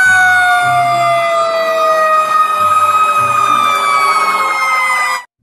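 Loud siren wailing, two pitched tones sliding slowly downward in pitch over a low pulsing tone, cutting off suddenly about five seconds in.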